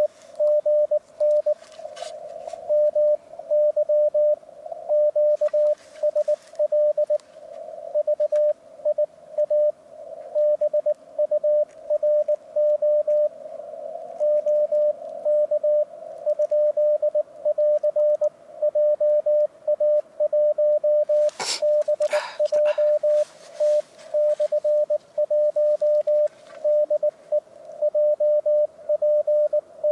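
Morse code on an amateur radio transceiver: a single tone of about 600 Hz keyed on and off in dots and dashes at a steady hand-sending pace during a CW contact on the 7 MHz band, over faint band hiss. A brief burst of noise cuts in about 21 seconds in.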